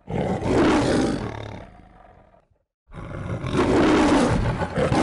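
A lion roaring twice, the MGM logo's roar: a long roar that fades out, then a second one starting about three seconds in.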